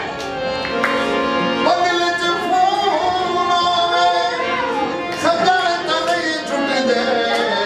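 Music with a singing voice holding long, wavering notes over instrumental accompaniment.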